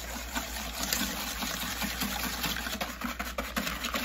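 Wire balloon whisk beating cream and sugar by hand in a stainless steel bowl, whipping it toward whipped cream: a rapid, steady run of clicking and scraping as the wires strike the metal.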